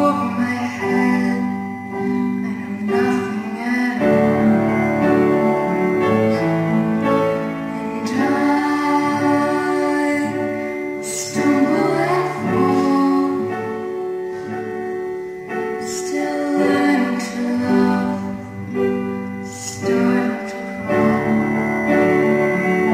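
Two young voices singing a duet in vocal harmony, accompanied by strummed and picked acoustic guitars.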